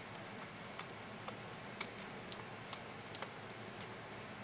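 Light, irregular metal clicks of a latch tool working loops on a knitting machine's latch needles, the tool tip tapping the needles as the latches flick open and shut.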